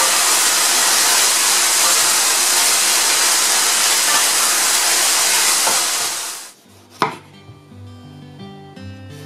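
Pork strips and green peppers sizzling loudly in a hot pan as they are stir-fried with a wooden spatula. The sizzle cuts off about six and a half seconds in, followed by a single sharp knife stroke on a cutting board and soft guitar music.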